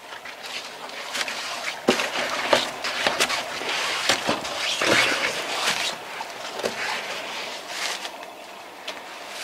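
Footsteps scuffing and crunching on a gritty stone floor strewn with dry leaves, mixed with clothing and camera-handling rustle. There is a run of sharp knocks and scrapes through the first six seconds, easing off after that.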